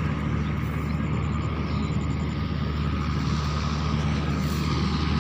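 Swaraj 855 FE tractor's three-cylinder diesel engine running steadily at close range as it pulls a grain trolley through paddy stubble.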